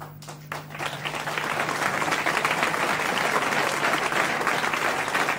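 Audience applauding: a few scattered claps at first, swelling within about a second into steady applause.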